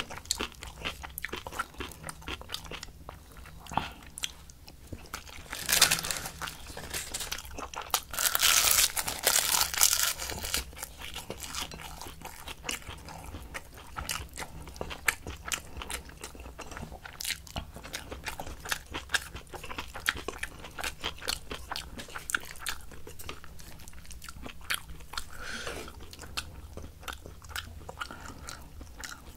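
Close-miked eating of spicy aged kimchi with rice: wet chewing and crunching of the cabbage, with many sharp clicks. A louder, noisier stretch comes about eight to ten seconds in.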